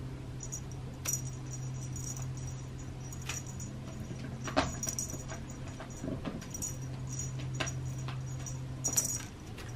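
A cat rolling and pawing on a sisal-and-artificial-grass scratcher under a bristle brush arch: scattered scratching, rustling and jingly clicks, with sharper clicks about a second, four and a half, and nine seconds in. A steady low hum runs underneath.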